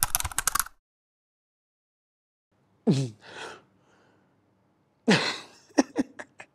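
A rapid clicking sound effect that stops under a second in, then silence, then a young man's wordless vocal sounds: two short cries that drop steeply in pitch, a couple of seconds apart, followed by a few sharp clicks.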